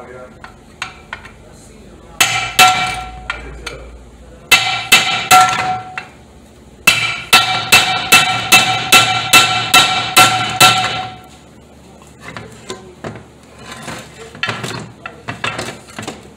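Hammer striking a steel rod driven into an aluminum transmission casting, in three runs of ringing metal-on-metal blows. The last and longest run is about a dozen quick strikes, roughly three a second.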